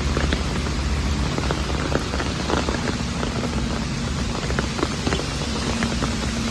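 Steady rain, with many separate drops ticking close by over a continuous hiss and a low rumble underneath.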